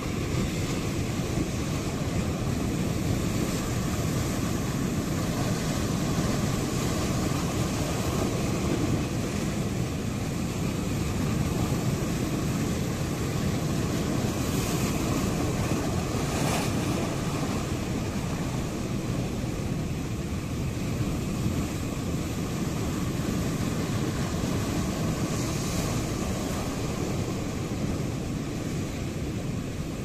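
Sea waves surging and washing against the shore in a steady deep rumble of surf, with a brighter hiss of breaking water around the middle.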